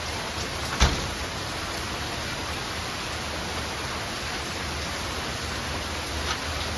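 Steady rain falling, an even hiss, with one sharp knock a little under a second in.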